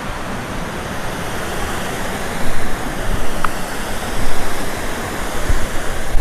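River water rushing at a dam in full monsoon flow, a steady loud wash of water noise, with uneven low bumps from about two and a half seconds in.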